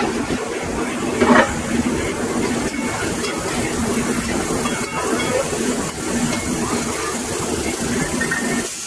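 Steady hiss with a low hum from food cooking in a pan on a gas stove, with a short louder clatter about a second in.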